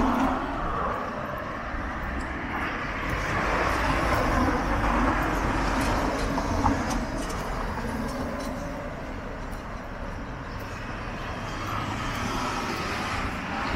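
Outdoor city street ambience: a steady rushing noise of traffic, swelling and fading, with a deep low rumble underneath.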